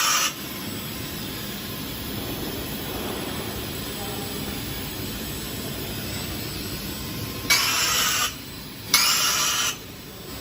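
Steady machinery noise from a fiber laser welding machine at work, with two sharp hissing bursts of under a second each, about a second apart, near the end.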